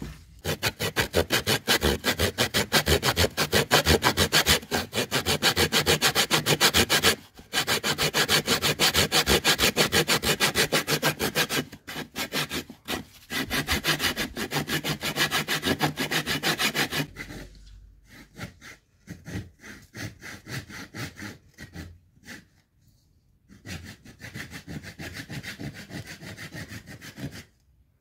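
Hand saw cutting through old painted wood in quick, even back-and-forth strokes, stopping briefly a few times. After about 17 seconds the strokes get softer and more broken up.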